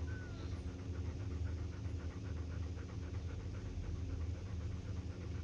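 Mother German Shepherd panting quickly and evenly over a steady low hum, with one faint short squeak at the very start.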